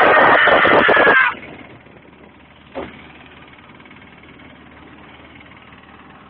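A loud yell that lasts about a second, then the steady running noise of a vehicle carrying riders, with a single knock about three seconds in.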